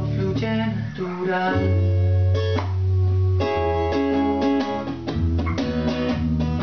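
Instrumental guitar passage: an acoustic guitar and an electric guitar played together, with no singing. Picked and strummed notes over a low line that changes about every second.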